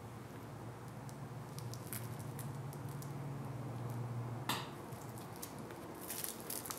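Small crackles and crunches from the charred crust of a homemade heat-resistant coating (PVA glue and baking soda) being handled and broken in the hands, with a sharper snap about four and a half seconds in and a cluster of crackles near the end, over a low hum.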